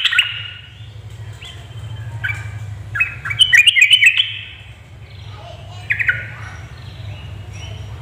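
Yellow-vented bulbul giving several short bursts of chattering, bubbling calls. The loudest phrase comes about three to four seconds in, with a steady low hum underneath.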